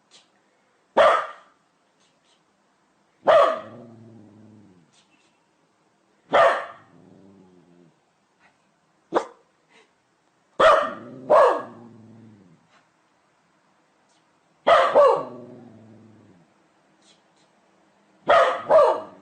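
A dog barking: nine sharp barks a few seconds apart, two of them coming in quick doubles. Several barks trail off into a lower, fading sound lasting about a second.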